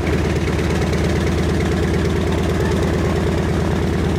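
Radial engine of a WWII Navy warbird idling just after start-up, a steady, evenly pulsing throb with the propeller turning.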